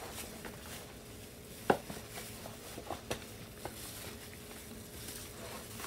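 Scattered light clicks and knocks of kitchen utensils and dishes being handled during food preparation, with one sharper click a little under two seconds in and a few softer ones about three seconds in, over a faint steady hum.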